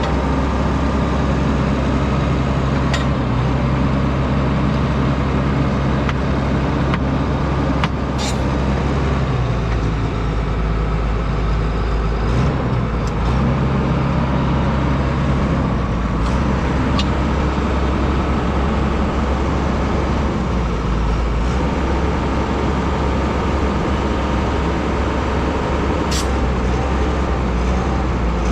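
Vögele 2116T asphalt paver's diesel engine running steadily, its note shifting slightly a few times, with a few short sharp clicks.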